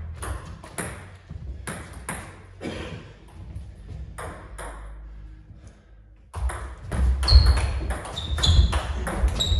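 Table tennis ball bouncing with light clicks every half second or so as the server prepares, then, after a short pause, a rally: quick ball hits on bats and table, with heavier thuds and short squeaks of footwork on the wooden floor.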